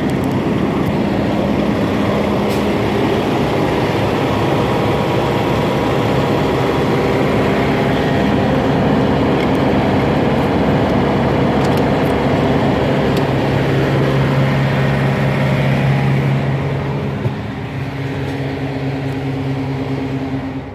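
Steady engine noise from running vehicles, with rubbing from a hand on the microphone. At the very end a single knock, likely a car door shutting, cuts the outside noise sharply down.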